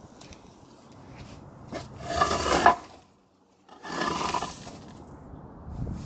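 Footsteps crunching and scraping on loose dirt and rubble, heard as a few separate scuffs, the one about two seconds in the loudest.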